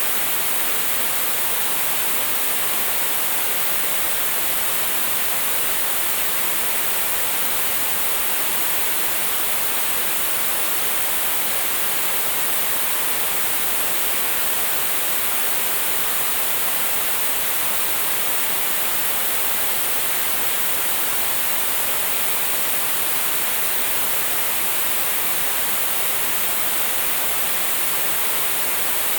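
Analog television static: a steady, unbroken hiss of interference noise, strongest in the highs, with no change in level.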